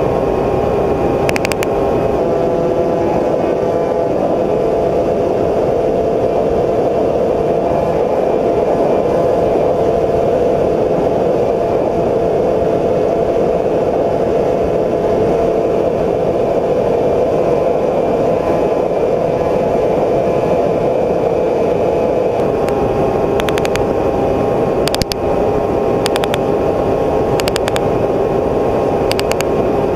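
Steady whir of a camera drone's electric motors and propellers, several steady tones over a broad rushing noise. A few faint clicks come about a second and a half in and several more near the end.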